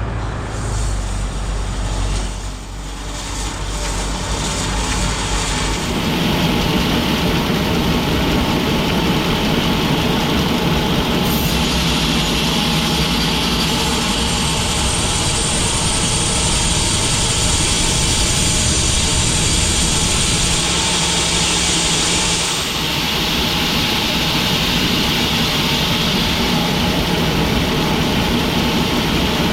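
Sawmill machinery running steadily with a heavy engine note. The sound thickens and gets louder about six seconds in, and a high hiss joins in midway before easing off about three quarters of the way through.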